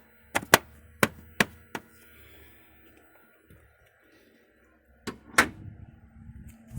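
A series of sharp clicks and knocks at a car's relay and fuse box: five in the first two seconds, then two more a little after five seconds in.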